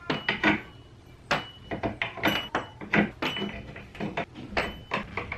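Wooden string hooks being hung one after another on a wooden wall board: an irregular run of sharp wooden clicks and knocks, several a second.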